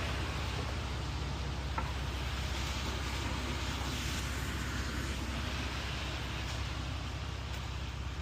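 Concrete mixer truck's diesel engine running steadily, with one small click a couple of seconds in.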